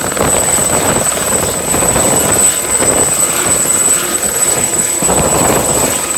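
Aérospatiale Gazelle helicopter running close by as it hover-taxis just above the ground: turbine and main rotor going steadily, with a steady high-pitched whine over the rotor noise.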